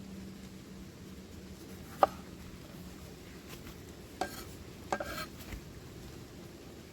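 A few sharp clinks of a metal utensil against cookware: one loud clink about two seconds in, then more around four and five seconds, the last followed by a short rattle. A steady low hiss lies underneath.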